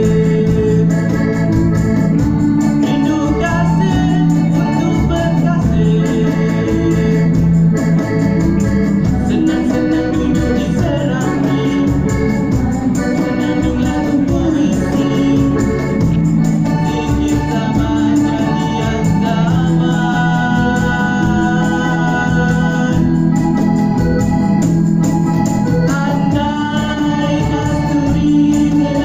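Live band music through a PA, carried by an electronic keyboard playing held organ chords, with voices singing over it.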